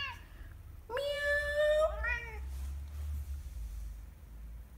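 A long-haired colorpoint cat meows once, starting about a second in. The drawn-out call holds a steady pitch, then ends in a short tail that rises and falls.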